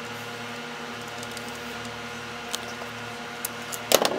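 Small clicks and a short clatter near the end from handling the plastic plug and its wires, over a steady background hum.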